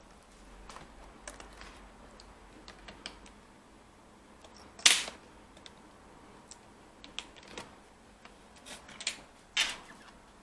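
Scattered small plastic clicks and taps as a Lenovo B575 laptop keyboard is worked loose from its case, with two louder snaps, one about five seconds in and one near the end.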